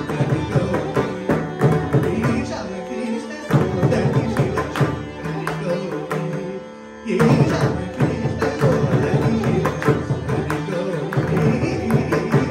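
Carnatic music: a male singer with violin accompaniment and mridangam strokes. About six seconds in the music falls back to a brief lull, then the ensemble comes back in together about a second later.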